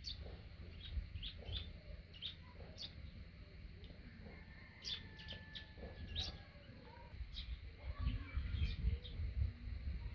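Small birds chirping, with many short high chirps scattered throughout, over a low rumbling noise that grows louder near the end.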